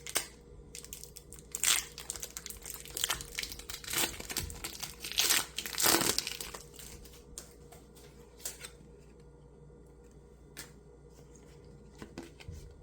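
Foil Pokémon booster pack being crinkled and torn open, a run of crackling rustles that is loudest about five to six seconds in, then dies down to a few faint handling clicks.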